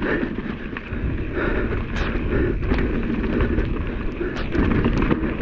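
Santa Cruz Hightower mountain bike being ridden down a dirt trail: wind on the microphone and the tyres rumbling over the ground, with frequent clicks and rattles from the bike over bumps.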